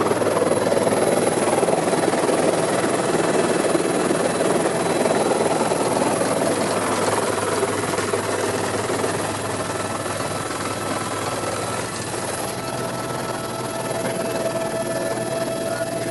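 Helicopter in flight heard from inside its cabin: steady rotor and engine noise, slightly quieter in the second half.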